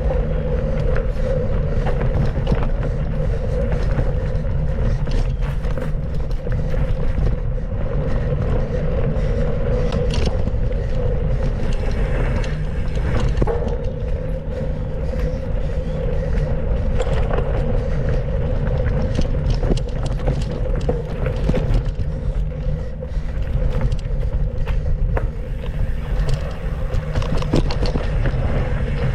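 Mountain bike riding over a dirt trail: a continuous heavy rumble with many small clicks and rattles.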